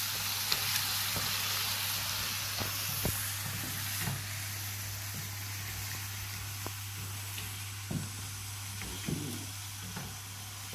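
Chili con carne sizzling and bubbling in a frying pan as a wooden spatula stirs it, with a steady hiss and scattered short scrapes and taps of the spatula against the pan.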